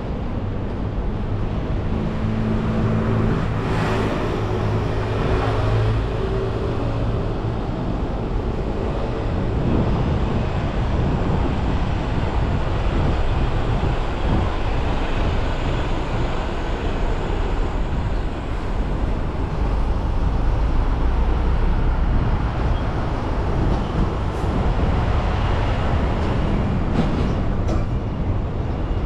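Steady road traffic noise from vehicles passing close by, with an engine's hum standing out from about two to six seconds in.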